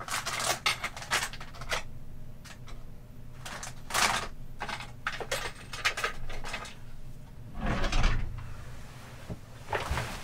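Objects being handled and moved about at a desk: irregular clicks, knocks and rustling in several short bursts with pauses between, the loudest about eight seconds in.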